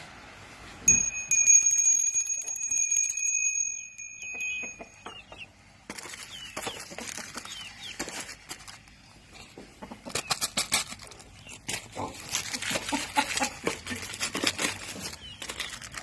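A steady, high-pitched whistling tone for about three seconds near the start. After it, chickens and chicks feed in the dirt: scattered pecking and scratching clicks with faint peeping.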